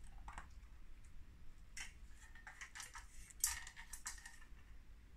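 Stainless steel pet food bowls clinking and rattling in their wire stand as a kitten eats from them. A scatter of light metallic clinks with a brief ringing note, the loudest about three and a half seconds in.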